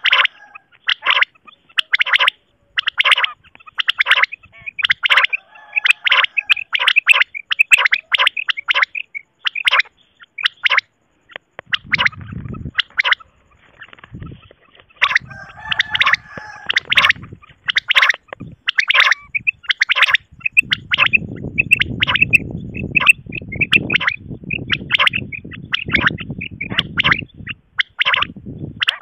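Common quail calling: rapid series of short, sharp, high notes repeated over and over. A low rumble of background noise comes in briefly about halfway through and again near the end.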